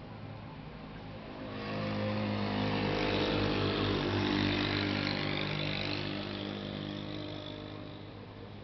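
A motor vehicle's engine passing by at steady revs, growing louder about a second and a half in and fading away over the last few seconds.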